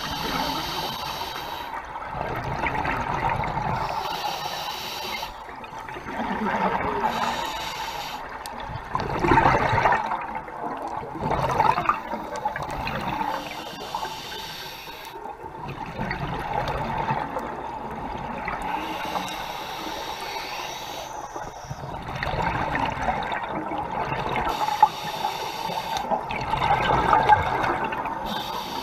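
Scuba regulator breathing underwater: inhalations alternating with bursts of exhaled bubbles, one breath cycle every few seconds.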